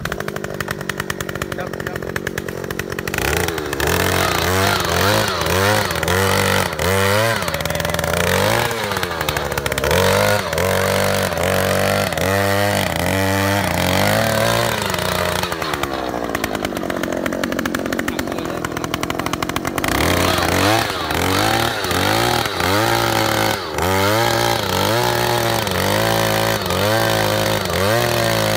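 Oshima 2PS earth auger's 54 cc two-stroke engine running hard as the auger bores into soil. Its revs rise and fall about once a second, with a longer drop and climb about halfway through.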